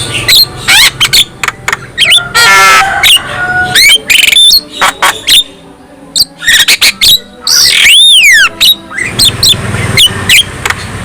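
Javan myna singing a varied run of harsh chatters, clicks and clear whistles. A rapid trill comes about two and a half seconds in, and a long whistle that rises and then falls comes about eight seconds in.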